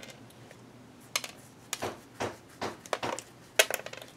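A string of light, sharp clicks and taps, about eight to ten in irregular rhythm, starting about a second in: small hard objects being handled and tapped.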